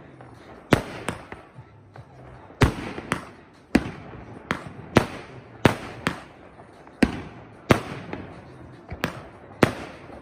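Aerial fireworks bursting overhead: a rapid, uneven series of sharp bangs, roughly one every half second to second, each with a short echo.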